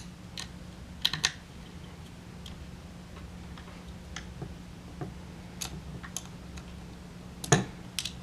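Scattered light clicks and taps of small metal hardware being handled as a screw is threaded into its nut on a clamp-on flashlight mount, with a cluster about a second in and the loudest clicks near the end.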